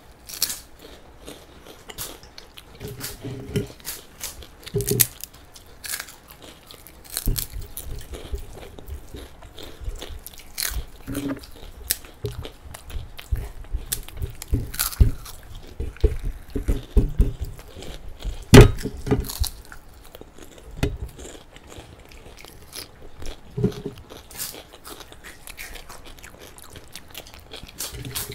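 Close-up eating sounds of sabudana papad being bitten and chewed: sharp crisp crunches scattered all through, the loudest about two-thirds of the way in, between quieter chewing.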